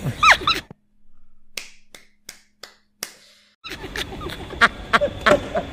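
About five short, sharp clicks or snaps, spread over about two seconds, in a near-silent pause between louder stretches of sound.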